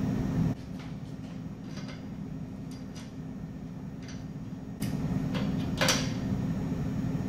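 Scattered light metallic clicks of a hand ratchet snugging down a freshly Loctited bolt on a steel axle housing, a few separate ticks with the loudest near the end. A steady low shop hum runs behind them and drops away for about four seconds.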